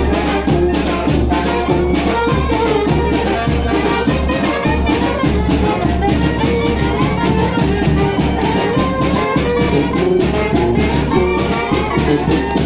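Mexican brass band (banda) playing dance music: brass melody over sousaphone bass and a steady drum beat.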